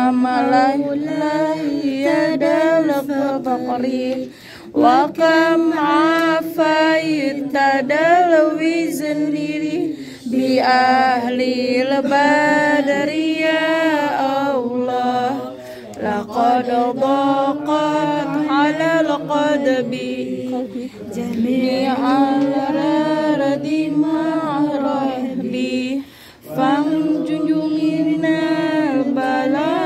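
A group of women chanting Arabic devotional verses (sholawat) together, in long sung phrases with short breaks about every five to six seconds.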